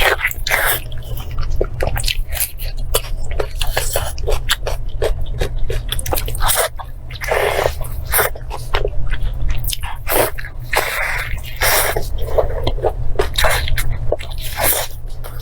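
Close-miked eating: wet chewing and many small lip-smacking clicks, with a couple of longer hissy gusts about seven and eleven seconds in, over a steady low hum.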